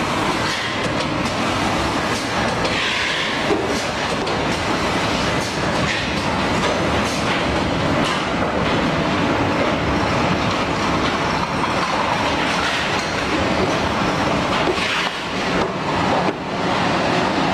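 Heat shrink tunnel wrapping machine running, with boxes riding its roller conveyor: a loud, steady mechanical noise with a light rattle and a few clicks.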